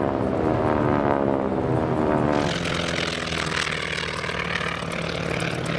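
Boeing-Stearman biplane's radial engine and propeller running, its pitch falling steadily over the first two seconds or so, then settling into a steadier low note under a rushing noise.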